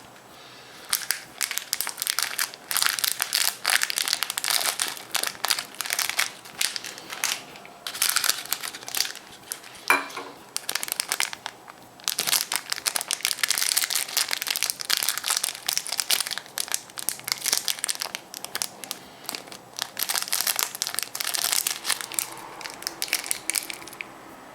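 Thin foil wrapper of a chocolate surprise egg crinkling in quick rustling bursts as it is peeled off by hand, with a short pause about halfway.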